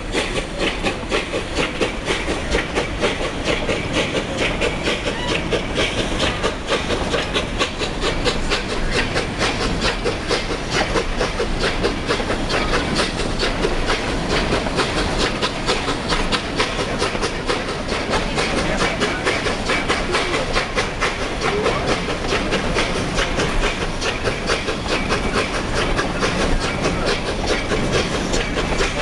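Narrow-gauge steam train running steadily, a rapid unbroken rhythm of beats over a constant hiss.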